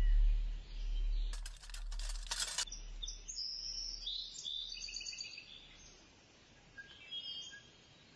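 Birds chirping in short bursts while a deep bass note dies away, with a brief rush of hiss about a second and a half in; after that it is very quiet, with a last few chirps near the end.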